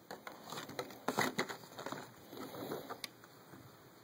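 Resin miniature parts on their sprues being handled and laid out, giving scattered light clicks and scuffs, with a cluster of clicks a little past a second in.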